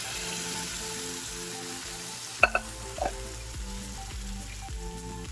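Hot oil tempering sizzling in a steel pan as boiled urad dal is poured into it. The hiss eases about halfway, where two sharp metal knocks sound about half a second apart.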